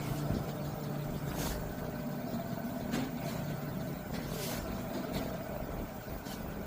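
LG 15 kg top-load inverter washing machine running with its broken gearbox roller replaced: a steady low hum with a faint higher tone and a few light clicks, no grinding.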